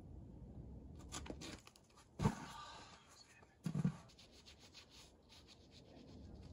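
Climbing shoes and hands scuffing on the rock, then a heavy thud about two seconds in as the climber comes off the boulder and lands, followed by a second, duller thump a moment later.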